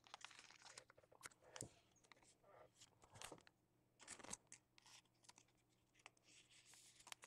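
Faint handling of trading-card packs: crinkling wrapper and tearing, with scattered small clicks and snaps of cards, a short crinkly stretch near the start and another near the end.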